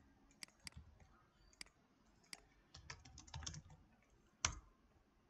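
Faint computer keyboard typing: scattered keystrokes, a quick run of them around the middle, and one sharper key press near the end.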